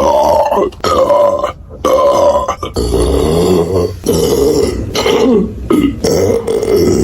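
A woman belching loudly, a run of about six long belches in quick succession, each lasting around a second with a short break between them.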